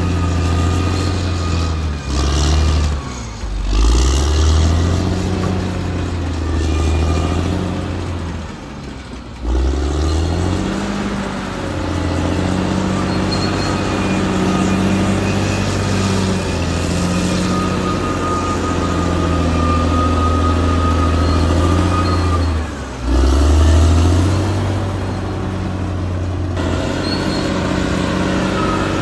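Caterpillar D6R XL bulldozer's diesel engine running under load. The engine note dips and picks back up a few times, with a thin steady whine over it.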